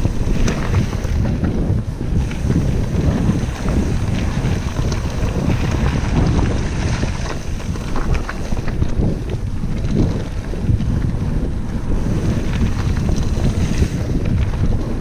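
Wind buffeting the camera microphone over the rumble and rattle of a Vitus Mythique mountain bike riding fast down a rough dirt and gravel trail, with many small clicks and knocks throughout.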